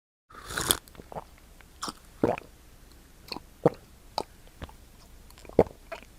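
Close-miked gulping and swallowing of water: a louder first gulp, then a string of short wet swallows and mouth clicks at irregular intervals.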